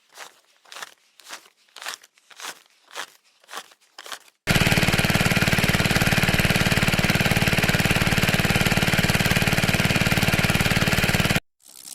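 Soft, regular crunching strokes about two a second. A little under halfway in, a loud, steady, rapidly pulsing mechanical rattle starts suddenly and cuts off abruptly near the end.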